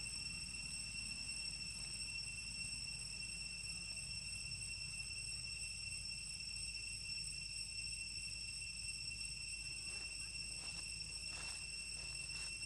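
Steady high-pitched insect trill with a low rumble underneath, and a few faint rustles near the end.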